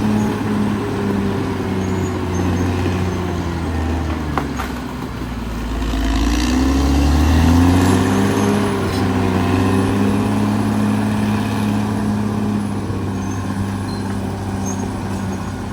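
Caterpillar D6R XL bulldozer's diesel engine running, its pitch sagging about four seconds in, then picking back up and running loudest for a moment before settling steady again.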